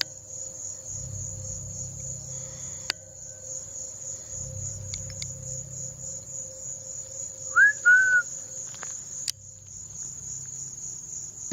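Steady chorus of night crickets. About two-thirds of the way through, a person gives a loud two-note whistle: a short rising note, then an arching one. Sharp ticks sound twice, near the start and near the end.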